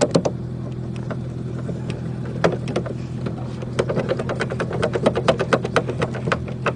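A run of quick, sharp clicks as a hand tool drives the tail-light mounting screw back in, coming fastest in the second half, over a steady low hum.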